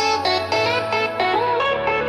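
Instrumental section of an electronic pop track with a plucked guitar-like melody over a steady bass line.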